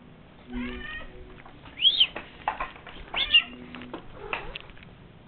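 Domestic cat meowing several times: a falling meow about half a second in, then two loud, high rising-and-falling meows about two and three seconds in.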